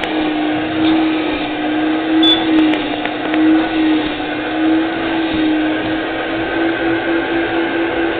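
Upholstery extraction machine's vacuum running through a hand tool pressed on a fabric cushion, extracting the cleaning foam from the upholstery. It makes a steady loud hum whose tone wavers and, in the second half, pulses about three or four times a second.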